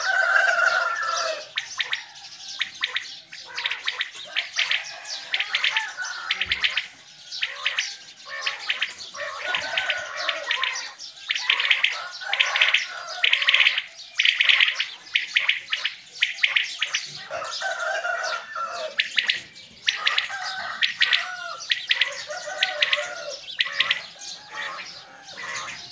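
Many caged quails calling at once, a dense chorus of quick, repeated high calls, with some lower calls now and then. The birds are kept as callers to draw in wild quail for the hunt.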